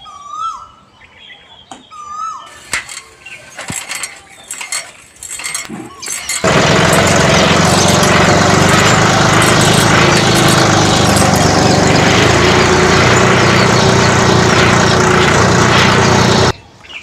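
A few short bird chirps, then about six seconds in a loud, steady engine sound, like a digger running, starts suddenly and cuts off abruptly just before the end, going with a toy excavator driving across sand.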